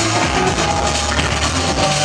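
House music played loud over a club sound system, with a bass line moving under a dense mix.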